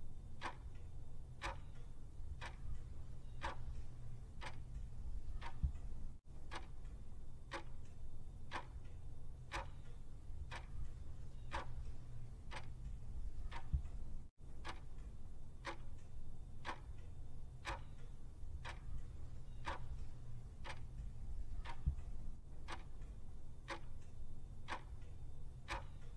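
Clock-ticking countdown-timer sound effect, steady ticks about two a second, over a faint low hum.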